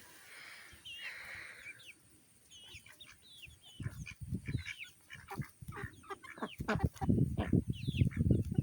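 Backyard chickens clucking, with high, wavering chirps early on and denser, louder clucking near the end.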